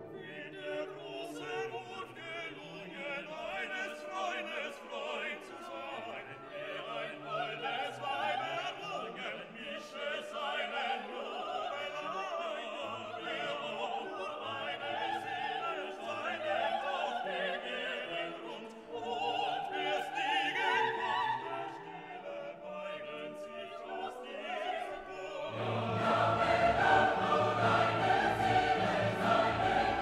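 Background music: a classical vocal piece with operatic singing and a choir over an orchestra. About 25 seconds in it grows louder and fuller, with a heavier bass.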